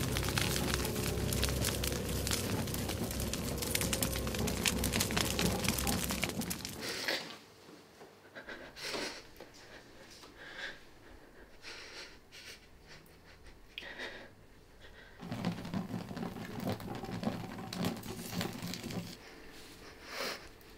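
A loud, dense crackling, crinkling noise that cuts off about seven seconds in, followed by a young woman crying quietly: sniffs and shaky breaths, with a stretch of stifled sobbing in the latter half.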